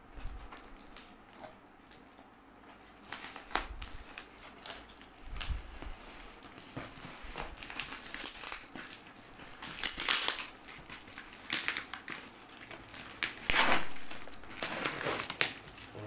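Cardboard shipping box and its plastic packaging being handled and opened by hand: irregular crinkling and rustling with scattered sharper crackles, loudest about three-quarters of the way through.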